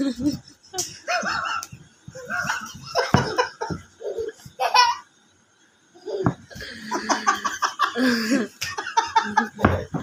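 People laughing heartily in repeated bouts, with a few words mixed in; the laughter pauses briefly about five seconds in, then resumes.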